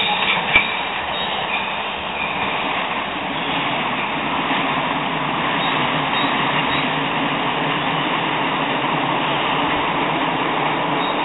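Light-rail tram-train running over the station tracks as it pulls away around a curve: a steady rolling rail noise, with a single sharp click about half a second in.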